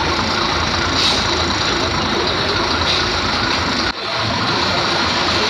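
Bus engine running amid the general din of a bus station, with voices in the background; the sound breaks off for an instant about four seconds in.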